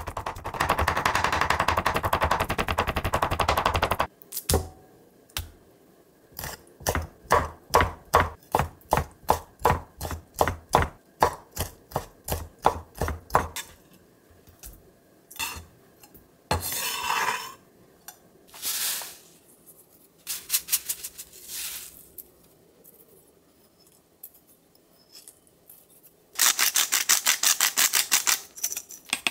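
Chef's knife chopping raw shrimp on a wooden cutting board: a fast run of chops, then slower, even chops a little over two a second that stop about halfway through. A few scattered clatters follow, and near the end a burst of fast clicking.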